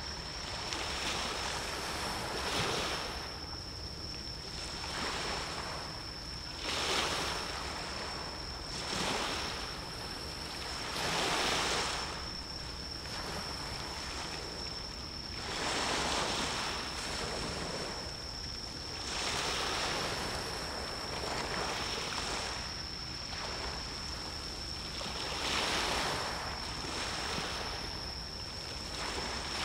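Sea waves washing in and breaking, a swell every two to four seconds that rises and falls away, over a steady high-pitched whine.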